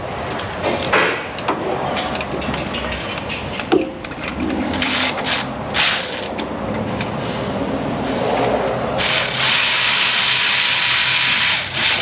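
A handheld power tool runs for about three seconds near the end, snugging up a starter mounting bolt just enough to hold the starter's weight. Before it come scattered metal clicks and clanks of the starter and tools being handled.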